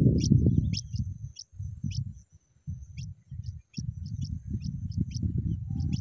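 Short, high, thin chirps from small birds, repeating about three times a second, over low gusts of wind buffeting the microphone. The wind is the louder sound; it dies away in the middle and rises again near the end.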